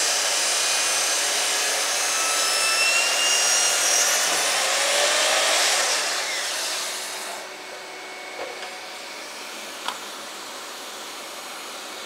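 Bosch GCM 12SDE sliding mitre saw running and cutting a 45-degree chamfer in birch plywood. A little past seven seconds in the saw noise drops away, leaving a dust extractor running steadily, with one sharp click near the end.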